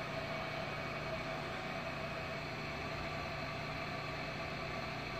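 Steady low hum with an even hiss that does not change.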